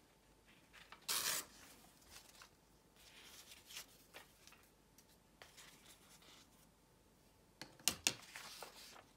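Close-up paper handling: soft rustling of a strip of old book paper, with one short, loud rasp of paper about a second in as the strip is parted. Near the end come two sharp clicks as a clear acrylic ruler is picked up on the table.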